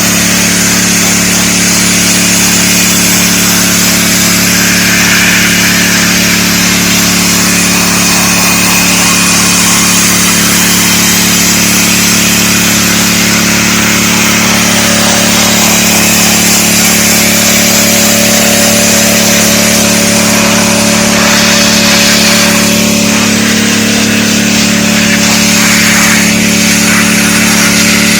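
DeWalt 3600 psi gas pressure washer running steadily, its engine hum under the loud hiss of the high-pressure water spray.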